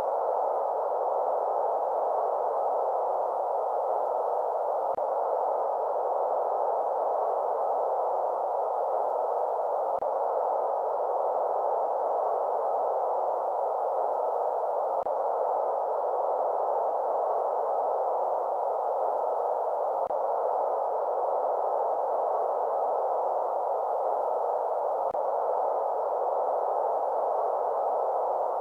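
Sleep-aid white-noise track: steady, even noise concentrated in the middle range, with little deep bass or high hiss. A very faint tick recurs about every five seconds.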